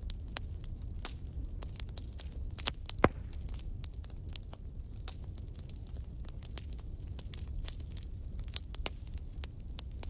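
Burning firewood crackling, with many sharp irregular pops over a steady low rumble; the loudest pop comes about three seconds in.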